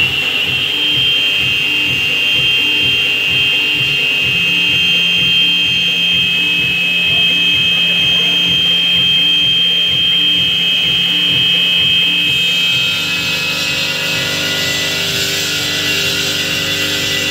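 CNC stone engraving machine's spindle running with a steady high whine as it engraves a granite slab, its pitch having just wound up; about 13 seconds in the whine shifts and a hiss rises above it. Background music plays underneath.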